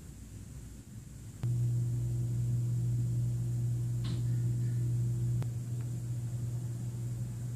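Steady low machine hum that cuts in abruptly with a click about a second and a half in and drops a little after a second click.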